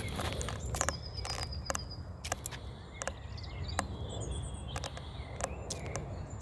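A small songbird's high, rapid trill about a second in and thin high calls around four seconds in, over sharp, irregular clicks and crackles and a low rumble.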